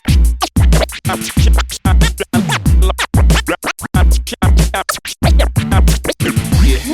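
DJ scratching a record over a hip hop beat. Quick back-and-forth strokes make short rising and falling glides and chop the sound in and out, over a steady heavy kick drum.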